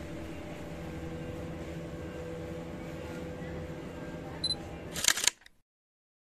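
Steady background hum, then a camera's short high focus-confirm beep about four and a half seconds in, followed half a second later by the shutter click.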